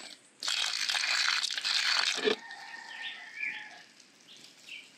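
Liquid biogas effluent poured from a jug into the centre of a pineapple plant, splashing down through its leaves for about two seconds before the pour stops.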